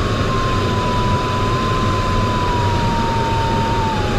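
Glider variometer's continuous audio tone, its pitch drifting slowly and dropping a step near the end as the climb rate changes, over steady airflow rush in the sailplane cockpit.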